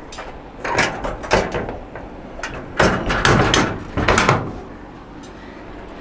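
1956 VW Beetle steel door being rocked and pushed, knocking and clanking in a string of sharp hits as the hinge pins are worked down into its hidden hinges. The clanks stop about four and a half seconds in.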